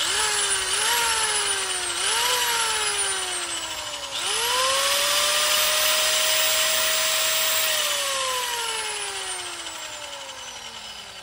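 Corded circular saw motor triggered in two short bursts, its whine rising and sagging each time, then held on for about three and a half seconds at a steady pitch and released. The whine then winds down slowly as the blade coasts to a stop.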